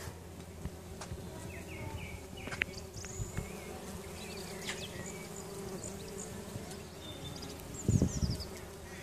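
Many bumblebees buzzing together in a flowering shrub: a steady, low, humming drone. A brief louder low sound comes near the end.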